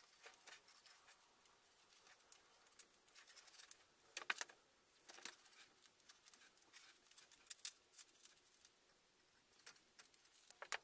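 Blue painter's tape being peeled off a painted wooden post and the used strips handled: faint, scattered rustles and small crackles, with a louder crackle about four seconds in.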